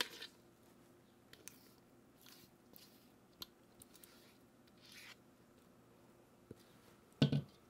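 Faint scraping and soft clicks of a silicone spatula working thick cake batter out of a copper mixing bowl into a parchment-lined metal cake pan. A short vocal sound comes near the end.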